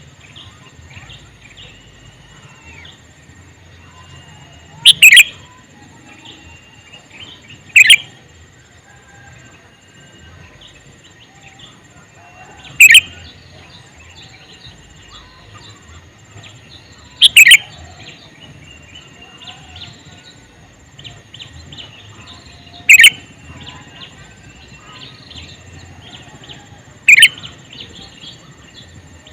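Male sooty-headed bulbul (kutilang) calling: six loud, short calls spaced several seconds apart, some of them doubled, over fainter continuous chirping.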